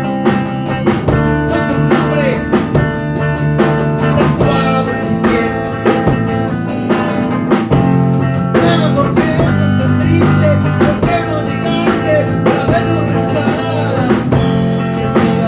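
Band music with guitar over a steady drum-kit beat.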